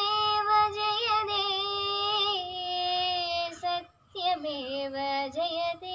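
A girl sings a Malayalam poem solo in the sung recitation style, holding long notes with a slight waver. There is a short break for breath about four seconds in.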